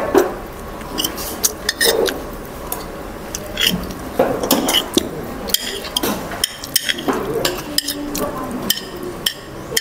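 A metal spoon clinking and scraping against a bowl as food is scooped and cut, with many short, irregular clinks.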